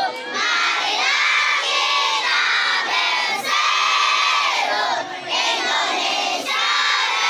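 A large group of children singing loudly together, close to shouting, in held phrases broken by short pauses.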